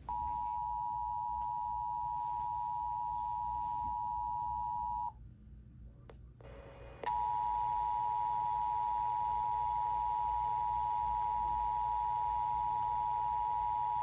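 Emergency Alert System attention tone from a TFT EAS encoder/decoder, marking the start of a relayed severe thunderstorm warning ahead of its voice message. A steady alert tone sounds for about five seconds, cuts off, and starts again about two seconds later, holding on.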